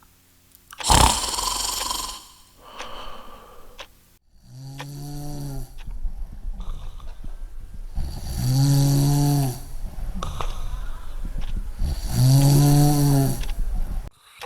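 Loud snoring, a snore every few seconds. The first is a rasping breath; the later ones carry a low humming pitch that rises and falls.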